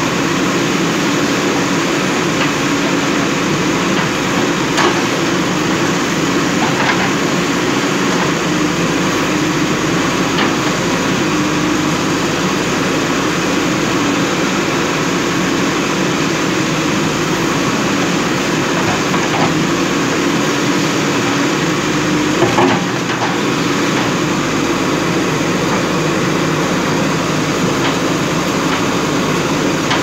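JCB 3DX backhoe loader's diesel engine running steadily under load while its backhoe digs out a tree stump. Several short knocks come through, the loudest a little past two-thirds of the way in.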